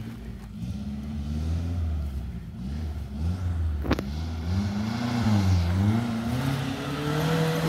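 Suzuki Jimny off-road 4x4's engine revving up and down under load as it climbs a steep dirt slope, the pitch wavering with the throttle, then rising and holding higher and louder near the end. A single sharp click about four seconds in.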